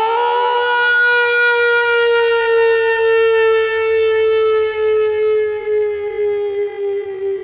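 Siren wail: one long, unbroken tone that falls slowly in pitch and fades, wavering in loudness near the end.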